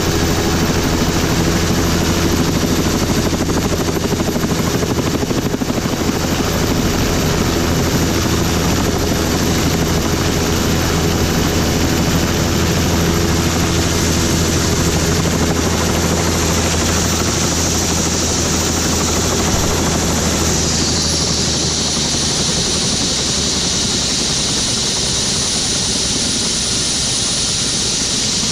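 Turbine helicopter running on the ground, its steady rotor beat fading out about three quarters of the way through while a high turbine whine falls in pitch, leaving a steady hiss: the engine winding down.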